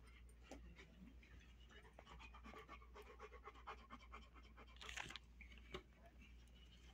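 Large dog panting faintly, mouth open, with one louder breath about five seconds in.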